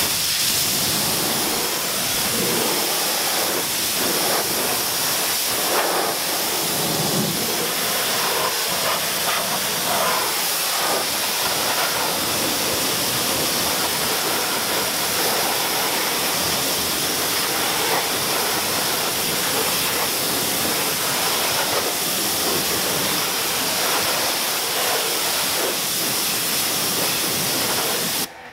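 Pressure washer jet hissing steadily as it sprays a car wheel and tyre, rinsing off cleaner foam; the spray cuts off abruptly near the end.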